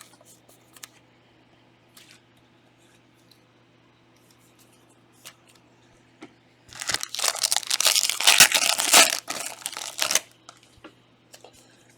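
A trading card pack's wrapper being torn open and crinkled. It starts about two-thirds of the way in, lasts roughly three and a half seconds, and comes after a few faint handling clicks.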